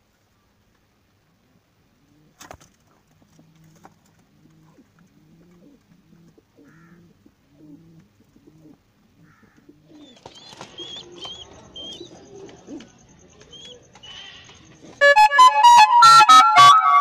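Pigeons cooing in a loft: low calls repeated over and over, with some shorter, higher calls joining in. About two seconds before the end, loud music comes in over them.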